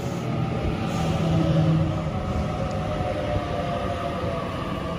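Sydney Trains Waratah Series 2 (B set) electric train pulling into the platform as it slows to stop. Its motors whine in several steady tones that drift slightly down in pitch, over a rumble of wheels on rail.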